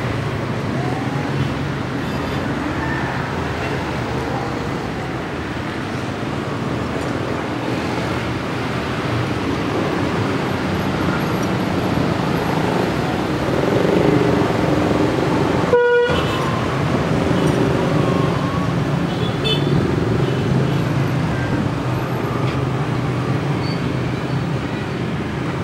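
Diesel locomotive running as it shunts the Gajayana passenger coaches at a distance: a steady low engine rumble, slightly louder after about 14 seconds. A brief tone sounds about 16 seconds in.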